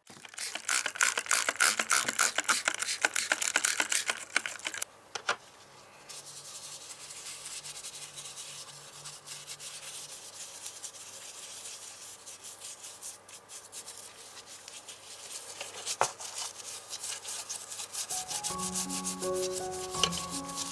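Hand sanding of a small model car part: rapid back-and-forth scraping strokes, loud for the first four or five seconds, then lighter steady rubbing with a sharp click about sixteen seconds in. Music comes in near the end.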